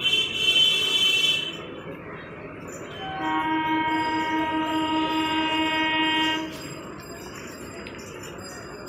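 Horn of an approaching EMU electric local train, not yet in sight, sounding twice: a short high-pitched blast at the start, then a longer, lower blast of about three seconds beginning about three seconds in.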